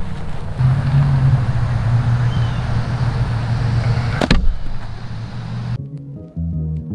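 Steady low outdoor rumble and hiss, broken about four seconds in by a single sharp impact as a thrown golf disc strikes. Music starts near the end.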